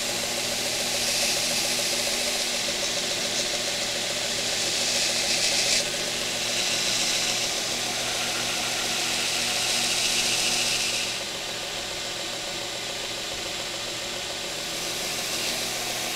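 Belt grinder motor running steadily while a steel knife blade is pressed to the moving belt in several passes, adding a hissing grind that comes and goes. This is the grinding out of micro bevels on the blade. The grinding eases off about eleven seconds in and picks up again near the end.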